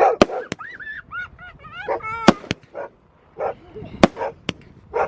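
Consumer firework cake (a 'Proton Bomb') going off: about six sharp bangs at uneven intervals, with wavering high-pitched warbling sounds between them.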